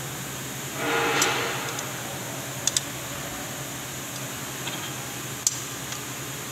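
Metal parts of a Toyota Hiace brake shoe assembly being handled: springs and the adjuster lever clicking against the shoe. A brief rushing scrape comes about a second in, a quick double click a little later, and a single sharp click near the end, over a steady low hum.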